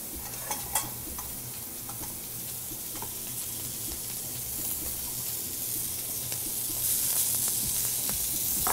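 Food sizzling in a hot pan on a gas range: a steady frying hiss that grows a little louder over the last couple of seconds. A couple of light clicks come in the first second.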